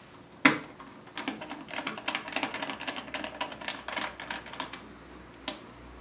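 Small screwdriver working screws out of an Asus X540L laptop's motherboard: a sharp click about half a second in, then a quick run of small clicks and ticks for about four seconds, and one more click near the end.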